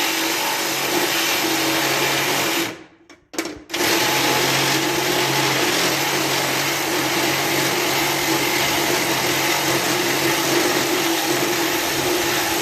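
Handheld electric power tool running steadily while cutting through sheet-metal tin on a lawn tractor. It stops for about a second, three seconds in, with a quick blip in between, then runs on again.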